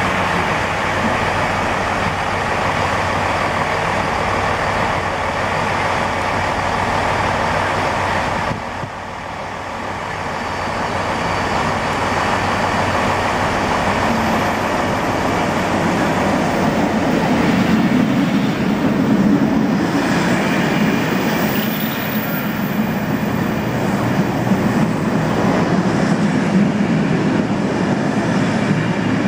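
A diesel multiple unit's engines run steadily at the platform. From about halfway, the engine of a class 60 diesel freight locomotive builds to a low rumble as it approaches and passes, followed by loaded tank wagons rolling by.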